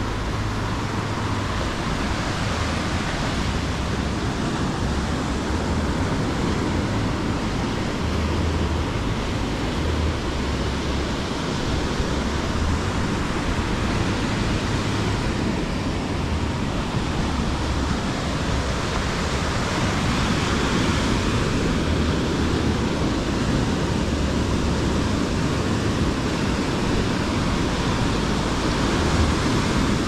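Surf breaking and washing up a sandy beach: a steady rush of waves, with an uneven low rumble of wind buffeting the microphone underneath.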